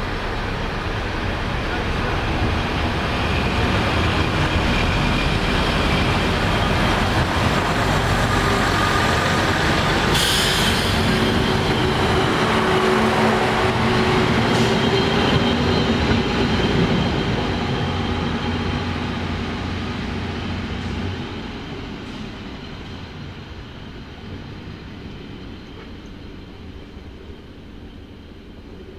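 ALn 668 diesel railcar pulling away from a standstill, its underfloor diesel engines working hard as it accelerates past, with a short sharp burst of noise about ten seconds in. The sound then fades as the train runs off into the distance.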